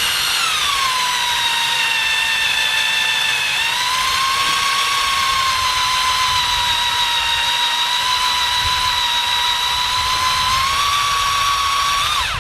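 Power drill boring a 3/16-inch bit into the center of a broken-off steel bolt under heavy pressure, running with a steady high motor whine. Its pitch sags lower early on, climbs back up about four seconds in, and the drill stops suddenly at the end.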